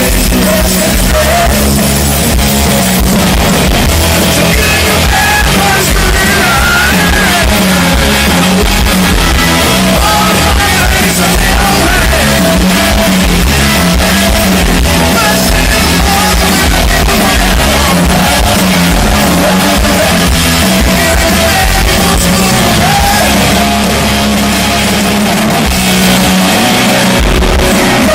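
Rock band playing loudly live: electric guitar and drums, with a voice singing over them at times.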